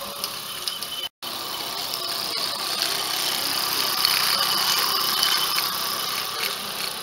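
Small live-steam garden-railway locomotive running along its track: a steady hiss of steam with running noise from the wheels and motion, getting louder for a few seconds as it passes close by.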